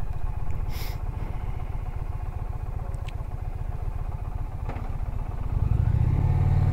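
Indian Challenger's big liquid-cooled V-twin idling with a steady, rapid low pulse at a standstill; it gets louder and fuller about five and a half seconds in.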